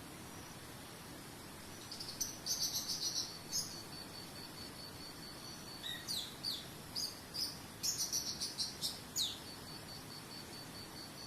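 A small bird singing in two bursts of quick high chirps and downward-sweeping notes, over a cricket trilling steadily and a soft even hiss.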